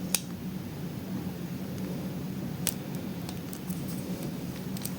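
A few faint sharp clicks of a lock pick working the pins of a pin-tumbler lock held under a bottom-of-the-keyway tension wrench, over a steady low background hum.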